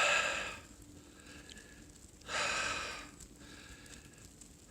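A man breathing heavily, two long exhales about two seconds apart, each fading out.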